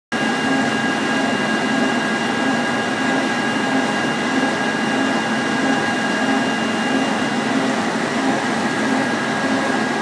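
A winery grape-sorting table carrying destemmed grapes runs steadily with a whirring machine noise. Under the noise is a pulsing low hum and two high steady whines, one of which stops about two-thirds of the way in.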